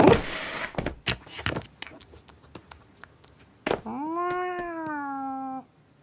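A cat gives one long meow of about two seconds, starting near the four-second mark; it rises slightly in pitch and then falls. Before it come a short rustle and scattered light clicks.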